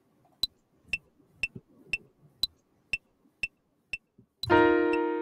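Soundtrap's clave metronome clicking at 120 beats a minute: a two-bar recording count-in, with a higher click on the first beat of each bar. About four and a half seconds in, a Grand Piano chord is played on the beat and rings on, slowly fading, over the continuing clicks.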